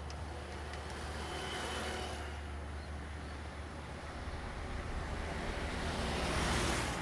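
Diesel train approaching: a steady low rumble under a rushing noise that swells louder toward the end.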